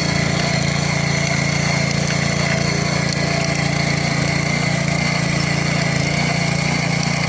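Antrac GX200 motor hoe's single-cylinder four-stroke petrol engine running at a steady, constant speed.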